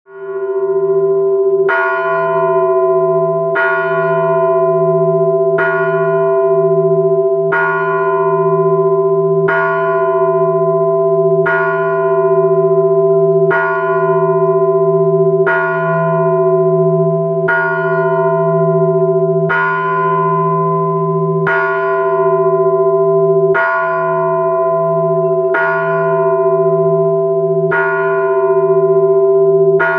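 A 210 kg Russian church bell cast by Fyodor Dubrovishin, struck steadily about once every two seconds, each stroke ringing on into the next over a sustained deep hum. Its maker says it sounds like a bell of one ton.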